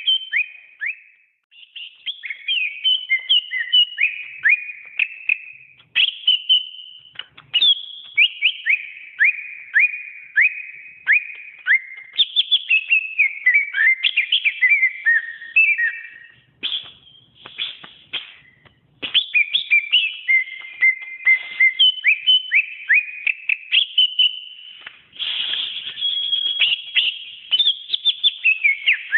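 Green leafbird (cucak ijo) singing: long, rapid phrases of sharp whistled notes, most sweeping down in pitch, broken by brief pauses.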